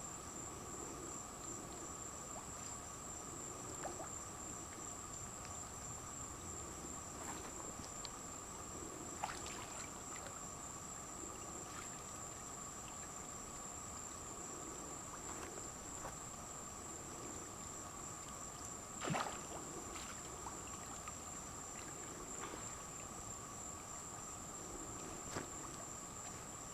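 A steady high-pitched insect chorus, like crickets, with a few faint knocks or splashes, the clearest about two-thirds of the way through.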